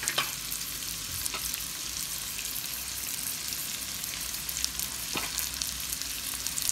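Raw shrimp sizzling steadily in butter and oil in a frying pan, with a few faint clicks.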